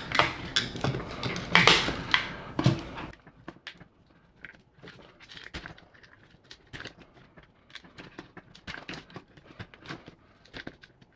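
Small plastic and metal parts being handled on a workbench: louder rustling and clattering for the first three seconds, then scattered light clicks and ticks.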